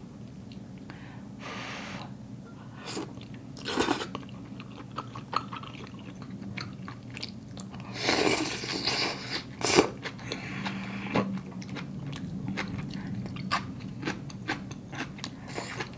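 Close-up eating sounds of a person eating noodle hot pot from a wooden spoon: chewing and mouth noises, with scattered short sharp sounds and a longer, louder stretch about eight seconds in, over a low steady hum.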